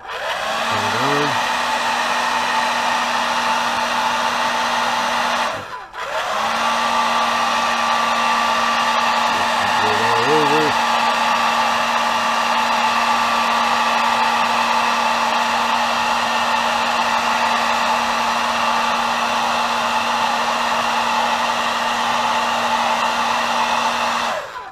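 Handheld blow dryer running steadily with a constant hum, heat-setting freshly airbrushed paint on a crankbait. It cuts out briefly about six seconds in, starts again, and switches off at the end.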